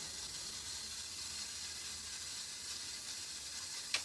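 Lawn sprinkler spraying water with a steady hiss, with a single sharp click near the end.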